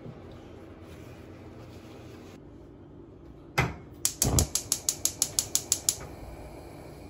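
One sharp click, then a rapid, evenly spaced run of about a dozen mechanical clicks, roughly seven a second for about two seconds, like a ratchet.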